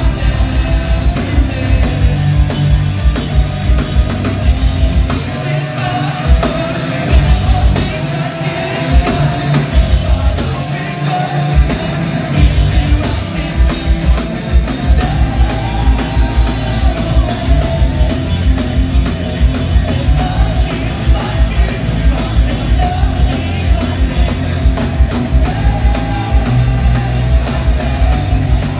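A punk rock band playing live and loud: distorted electric guitars, a drum kit and sung vocals. The drums ease off for a few seconds about five seconds in, then come back with a steady driving beat.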